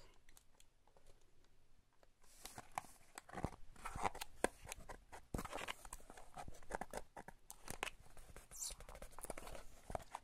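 Rustling, crinkling and tearing of paper and cardboard packaging being handled, with many scattered clicks and taps, starting about two seconds in.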